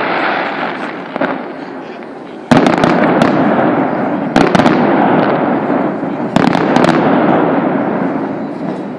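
Fireworks shells bursting in a series of sharp bangs, the loudest about two and a half seconds in and more at intervals of about two seconds, each trailing off in a long rolling echo.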